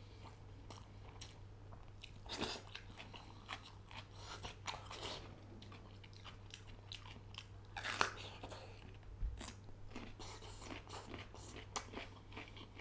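Close-miked chewing and mouth sounds of a man eating rice and fish curry by hand: irregular wet smacks and small clicks, one louder smack about eight seconds in, over a steady low hum.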